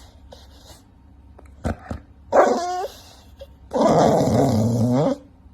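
A dog growling in two bouts after a short quiet stretch, the second bout longer and louder.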